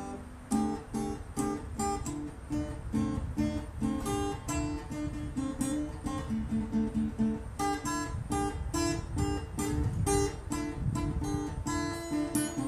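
Solo acoustic guitar playing a folk-flavoured classical piece, with single plucked notes following one another several times a second.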